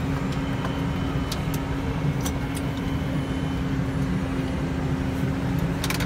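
Tractor engine running steadily at an even pitch, heard from inside the cab, with a few faint sharp clicks.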